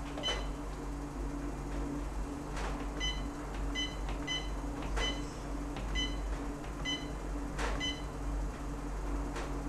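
Short electronic key beeps from a Humminbird Helix 10 fish finder as its keypad buttons are pressed, about eight of them from about three seconds in until near the end, with a few sharp clicks. A steady low hum runs under it.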